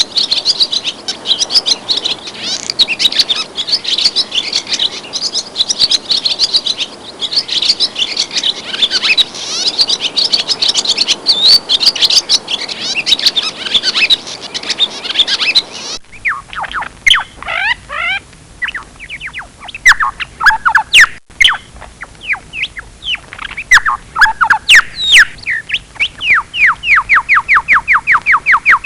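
Birdsong from two recordings: first a dense chorus of many small birds chirping over one another, then, after an abrupt cut about halfway through, a single bird's song of separate down-slurred whistled notes. Near the end these run into a fast trill of repeated notes, about seven a second.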